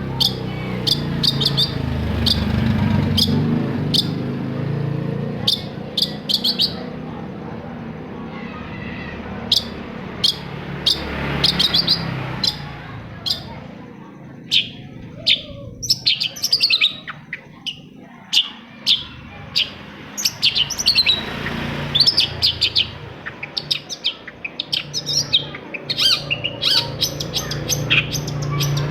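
Long-tailed shrike (cendet) singing: quick runs of short, sharp chirps and trills, some notes rapidly repeated, with brief pauses between phrases, over a steady low background rumble.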